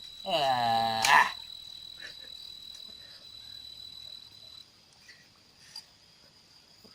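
Cricket chirring in a steady, high, unbroken trill that cuts off suddenly about four and a half seconds in. Near the start, a brief low voiced sound lasting under a second, ending in a sharp click, is the loudest thing heard.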